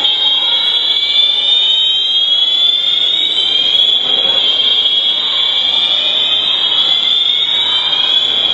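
Building fire alarm sounding continuously: a loud, high-pitched tone with slowly rising sweeps overlapping through it.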